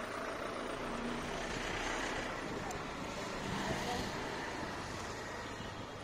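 Street traffic noise, with a motor vehicle going by that swells in the middle and fades toward the end.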